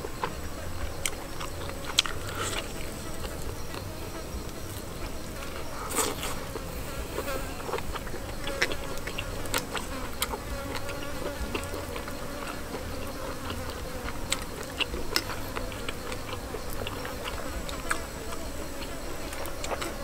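A flying insect buzzing steadily with a slight waver close to the microphone. Scattered sharp clicks and smacks come from a person tearing and chewing roasted chicken legs.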